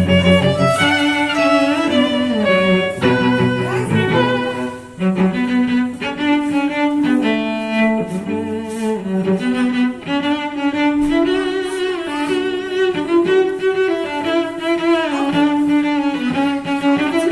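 Background music of bowed strings: cello and violin playing held, changing notes.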